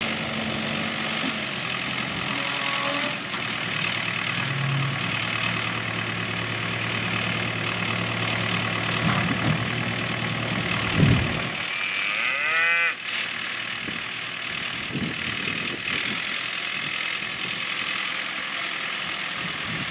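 Cattle mooing, with a pitched, bending call about twelve seconds in, over a steady low engine hum that fades out about eleven seconds in and a constant outdoor hiss.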